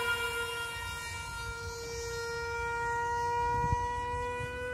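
Electric motor of an RC foam model Su-27 jet in flight, a steady high whine whose pitch dips slightly and then creeps back up.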